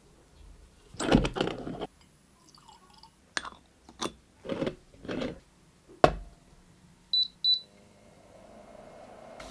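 Kitchen handling sounds: scrapes, clicks and a sharp knock as a moka pot is filled with ground coffee and put together. Then two short high beeps from an electric hot plate's touch control as it is switched on, followed by a faint steady hum.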